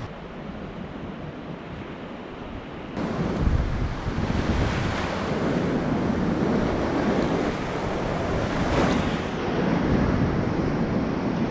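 Whitewater rapids rushing around a kayak, heard close up with wind buffeting the microphone. The water sounds dull and quieter at first, then suddenly louder and fuller from about three seconds in.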